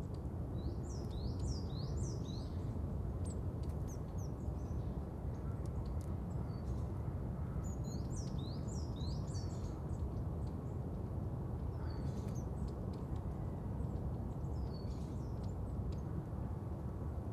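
Small birds chirping and singing, in several spells of quick, short falling notes, over a steady low outdoor rumble.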